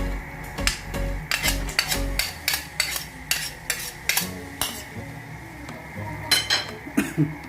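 A cooking utensil scraping and clinking against a pan as pork with shrimp paste is stirred, in irregular strokes, with faint sizzling underneath.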